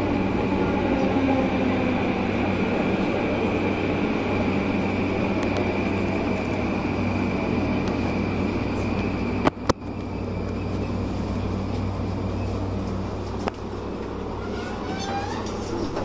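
JR Sobu Line rapid electric commuter train slowing to a stop at a station platform, heard from inside the car. The steady running hum carries falling whines as the motors wind down. Two sharp clicks come about halfway through, and then the sound settles quieter as the train comes to rest.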